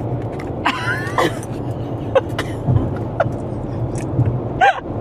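Steady road and engine noise inside a moving car's cabin, with short bursts of laughter about a second in and again near the end, and a few faint sharp ticks in between.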